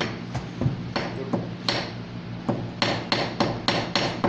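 Hammer striking, probably driving nails: a few scattered blows, then a quick steady run of about five strikes a second from about three seconds in.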